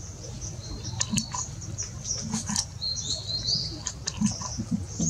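Short high-pitched chirps and squeaks, with light tapping and pattering scattered through and a low steady hum underneath.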